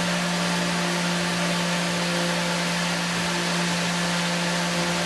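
Tormach PCNC 770 CNC mill cutting aluminium with a ShearHog face-milling cutter at 10,000 RPM on an adaptive roughing pass: a steady spindle tone with an even hiss over it.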